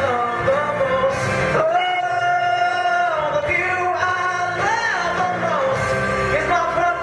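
A man singing a country ballad live into a handheld microphone over instrumental accompaniment, drawing out long held notes with vibrato.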